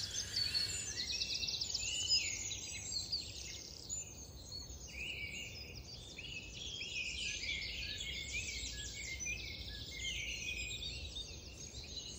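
Several songbirds singing and calling at once, a dense chorus of quick chirps and trills, over a faint low rumble.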